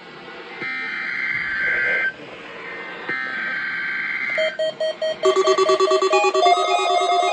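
Emergency Alert System SAME header: two screechy digital data bursts of about a second each, separated by a short gap. About five seconds in, a loud, rapidly pulsing electronic tune of several beeping tones takes over.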